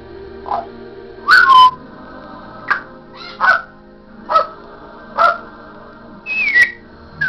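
African grey parrot giving a run of short, loud calls, about one a second, with a whistle that slides down in pitch near the end, over background music.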